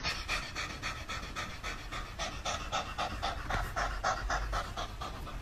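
Domestic cat panting with its mouth open and tongue out: a quick, even rhythm of about four breaths a second.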